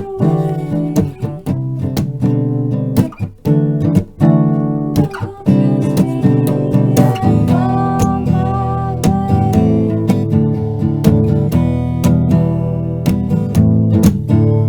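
Acoustic guitar strummed and picked in a loose, improvised jam, with a few brief breaks early on. About halfway through, a held melody line steps in pitch over the chords.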